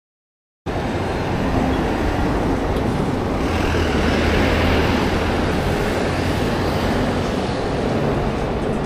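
Silence for the first half second, then steady street traffic noise, with a low rumble from a small truck passing by about three to six seconds in.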